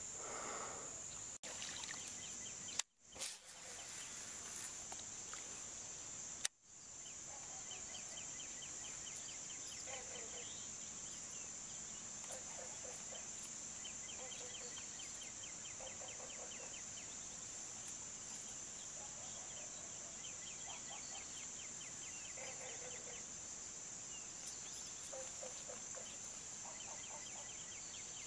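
Crickets and other insects calling: a steady high-pitched trill under rows of pulsed chirps that repeat every second or two, with lower pulsed calls between them. The sound cuts out briefly twice in the first seven seconds.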